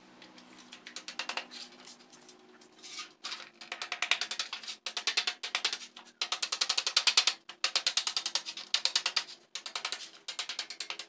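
A hand tool rasping across a sheet-metal plate in repeated strokes, each a burst of about a second, starting faint and getting louder after about three seconds. It is the sound of metal being cut or shaped by hand for an exhaust patch.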